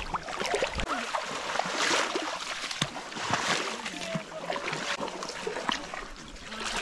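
Legs wading through deep swamp water, the water sloshing and splashing in uneven surges with each stride, strongest about two seconds in and again a little later.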